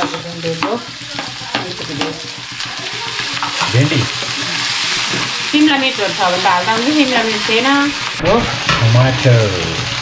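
Pasta and vegetables sizzling as they fry in a pan while being stirred, the utensil clicking and scraping against the pan. A wavering pitched sound runs for a couple of seconds past the middle.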